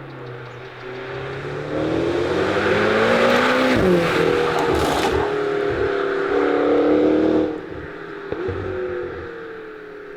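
McLaren GT's twin-turbo V8 accelerating hard. Its note climbs in loudness and pitch, dips sharply in pitch about four seconds in, rises again, then falls off abruptly as the throttle closes about seven and a half seconds in.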